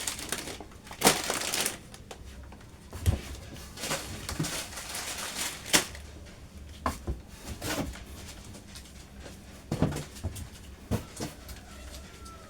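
Grocery packaging being handled: plastic crinkling and rustling, with scattered knocks and taps as items are picked up and set down.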